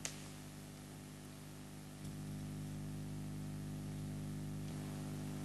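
Low steady electrical hum with an even hiss, the recording's background noise with no speech. One faint click right at the start.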